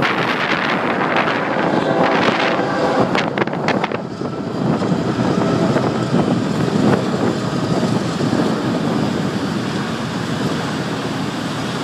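Car driving along with wind buffeting the microphone over road noise, gusty at first and turning to a steadier rumble about four seconds in.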